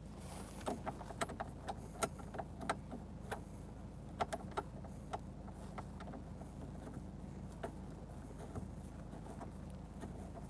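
Light, irregular clicks from the cab air filter cover's screws being done up by hand. About fifteen come over the first six seconds and a couple more later, over a low steady hum.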